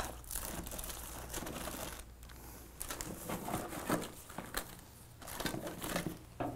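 Thin insulated wires of a twisted-pair telephone cable rustling and crinkling between fingers as they are twisted, with scattered small clicks and ticks.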